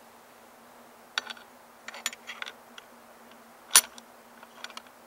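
Small metallic clicks and scrapes from an SKS rifle being reassembled by hand, as the recoil spring is pushed in and the dust cover is fitted. One sharp, loud metal click comes a little under four seconds in as a part snaps into place.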